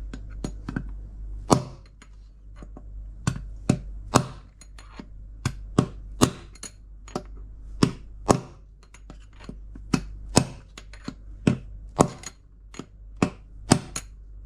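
Hammer blows on a drill bit used as a drift, knocking a worn drum bearing out of an LG washing machine's tub housing: about twenty sharp metal-on-metal strikes at an uneven pace of one or two a second, each ringing briefly.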